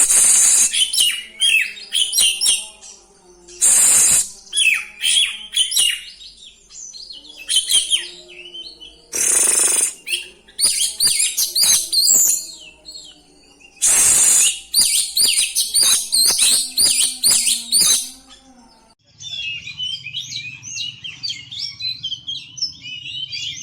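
Oriental magpie-robin (kacer) singing a long, rapid rolling song of varied whistles and chirps. Loud harsh bursts break in four times, about every four to five seconds. In the last few seconds the song thins to an even run of high chirps over a low hum.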